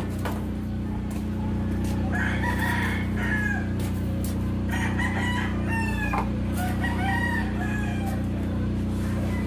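A rooster crowing three times, each call a pitched cry that bends and falls away, over a steady low machine hum.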